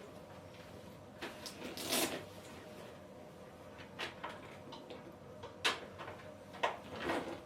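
Handling noises from plastic animatronic parts and packing foam: a handful of short scrapes and knocks, spaced irregularly.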